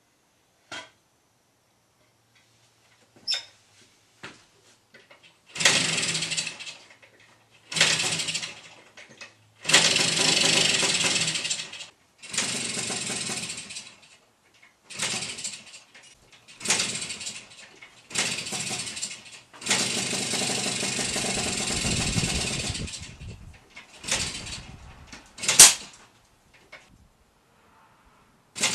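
Kawasaki F7 175cc two-stroke single being started over and over: it catches and runs in about ten short bursts, the longest a few seconds, cutting out after each one. This is the carburettor flooding the engine with too much fuel.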